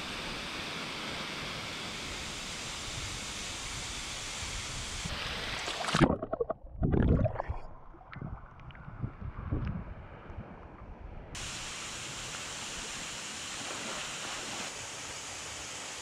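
Steady rush of a waterfall pouring into a pool. About six seconds in it turns muffled, with close, uneven water splashing and sloshing as the microphone sits at the water's surface, and after about five seconds the rush returns.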